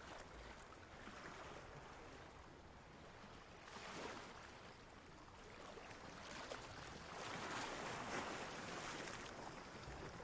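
Ocean surf: a steady wash of water noise that swells as a wave comes in about four seconds in, and again, longer, near the end.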